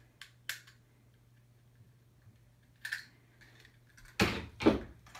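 Small plastic clicks from handling an HO scale model freight car while a missing wheelset is fitted. A few sharp ticks are followed by a louder clatter of knocks and rattles about four seconds in.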